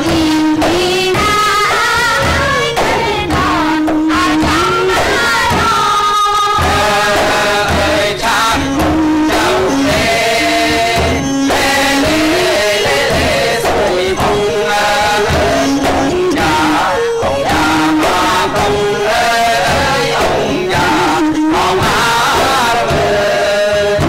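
Khmer yike theatre music: a stepping melody with singing over regular beats of yike frame drums.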